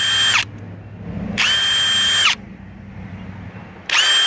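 Ridgid Octane R86011 1/2-inch brushless impact wrench, powered by a 4 Ah Octane battery, free-spinning with no load in short trigger pulls. Each pull gives a steady high whine that spools up and winds down. It is heard three times, about a second each: one ending just after the start, one in the middle, and one starting near the end.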